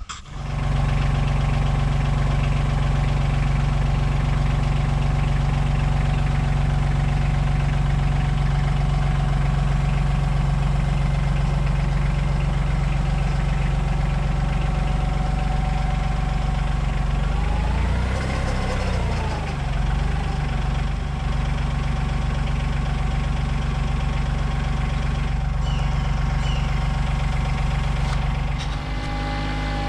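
Kioti CK2610 compact tractor's three-cylinder diesel engine starting and running steadily. About 18 seconds in, its pitch briefly rises and falls, and near the end it settles slightly quieter.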